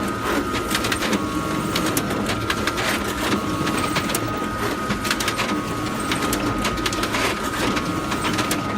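Photocopier running: a steady high whine over a low mechanical hum, with many quick irregular clicks.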